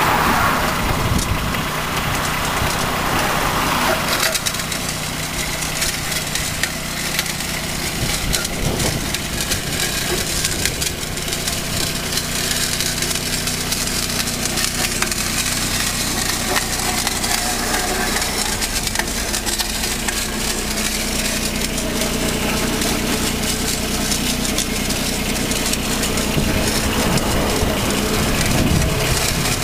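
Utility vehicle engine running steadily at low speed, under a rough crackling and scraping as the kerb edger's cutting head chews through turf, soil and grit along the kerb edge.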